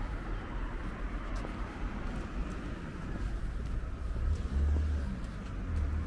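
Steady road traffic noise from cars, with a deep rumble that swells about four and a half seconds in and again near the end.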